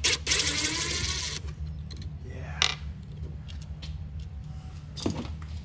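Hand tools and small metal hardware clinking and rustling during car interior disassembly: a scraping rustle in the first second and a half, then a few sharp clicks, over a steady low hum.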